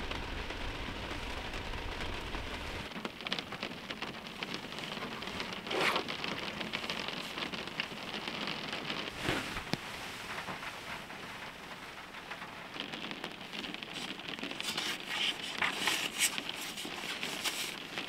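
Heavy rain pattering steadily on the shelter's roof, with scattered louder drops and clicks that bunch up toward the end. A low rumble underneath stops about three seconds in.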